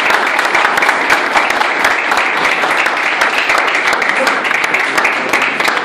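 A small crowd applauding: dense, steady hand clapping with voices mixed in.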